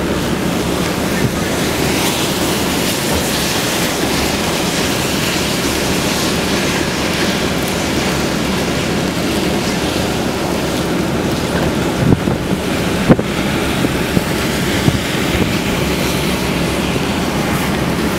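Hurricane-force wind blowing steadily and buffeting the microphone, with a few sharp cracks about two-thirds of the way in.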